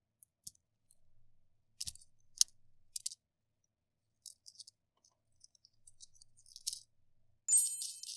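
Small plastic toy pieces clicking and tapping as they are handled and set down: scattered light clicks, then a short bright ringing clink near the end.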